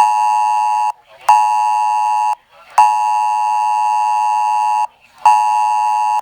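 Emergency weather alert tone sounding for a new flash flood warning: a loud electronic multi-tone beep, on about a second, off a fraction of a second, four times, the third burst about twice as long.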